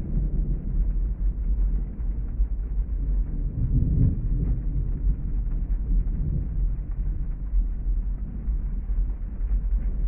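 Muffled rain ambience heard from inside a car cabin: a steady low rumble with no crisp patter, swelling slightly about four seconds in.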